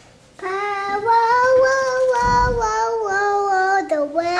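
A young girl singing in long held notes, starting about half a second in.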